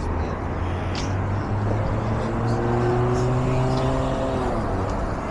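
A motor vehicle's engine passing close by over a steady rushing background. Its note rises slightly for a couple of seconds, then drops away about four and a half seconds in.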